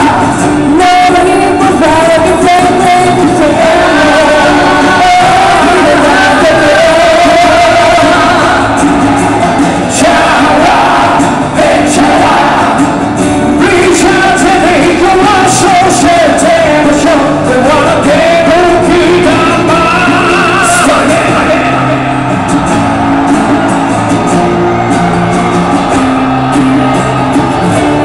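Pop-rock song with a singing voice over a band, played loud over a large hall's sound system and picked up by a small handheld recorder.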